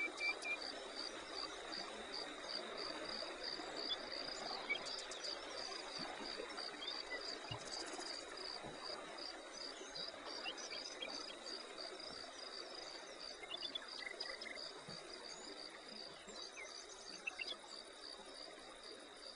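Insects chirping steadily in a high, even pulse about four times a second over a constant high drone, with a few faint bird chirps.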